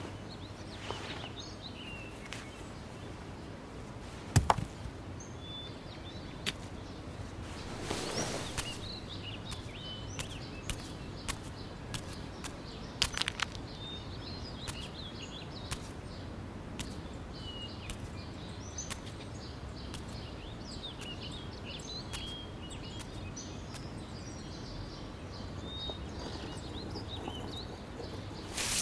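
Soft ambience of scattered bird chirps over a steady hiss, broken by a few sharp knocks and clicks, the loudest about four and a half seconds in and a small cluster around thirteen seconds.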